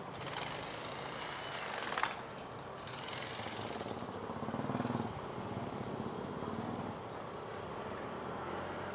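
Riding noise from a moving motorcycle: a steady rush of wind and road noise over the engine running low underneath, swelling twice in the first four seconds, with one sharp knock about two seconds in.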